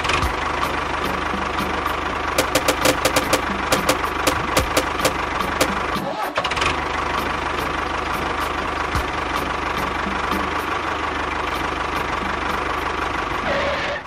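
Steady running sound of a motor, with a quick run of sharp clicks about two to three seconds in and a short break about six seconds in.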